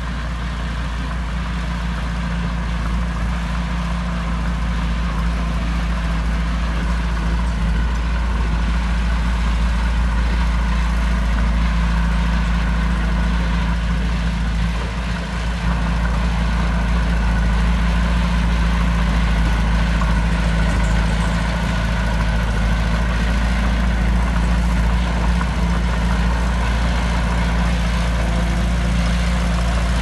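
Small Komatsu crawler bulldozer's diesel engine running steadily under load as it pushes soil with its blade.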